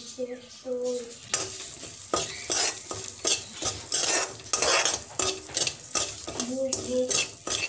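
Dalia (broken wheat) roasting in hot ghee in a kadai. A steel spoon stirs and scrapes the pan in quick repeated strokes over a light sizzle.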